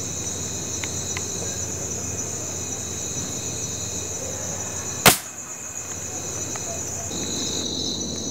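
A single pellet air rifle shot about five seconds in, a short sharp crack over the steady high chirring of night insects.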